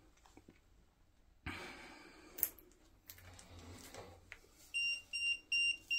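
A ghost-hunting EMF detector beeping rapidly: a high-pitched electronic tone pulsing about four times a second, starting near the end, the device's alert that it is picking up a field. Faint rustles and a light knock come before it.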